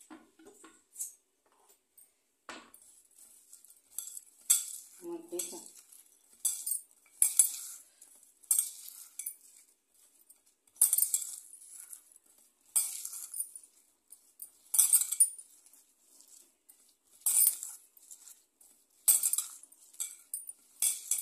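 Chopped onion, green chilli and dried kokum (sola) being squeezed and mixed by hand in a glass bowl: short crisp squishing, rustling strokes every second or two, with light knocks against the bowl.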